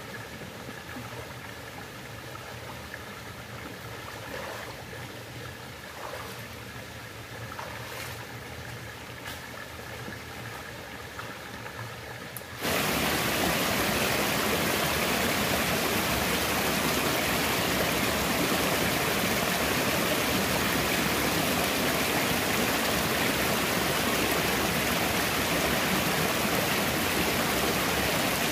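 Shallow rocky stream running over stones, quiet at first with a few soft splashes from wading. About halfway through, the rushing water suddenly becomes much louder and stays steady.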